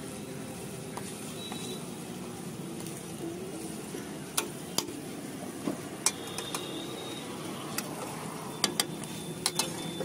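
Dosa sizzling on a hot flat iron griddle over a steady low rumble. From about four seconds in, a metal spatula clinks and scrapes on the griddle, sharp taps a second or so apart.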